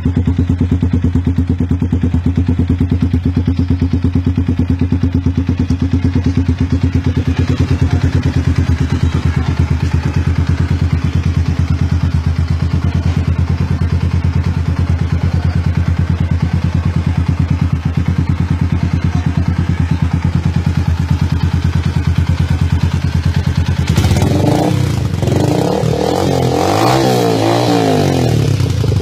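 Yamaha Sniper 150 single-cylinder four-stroke engine running through a NOB1 Titan series aftermarket muffler, idling steadily with an even exhaust beat. Near the end the throttle is blipped several times, the pitch rising and falling with each rev.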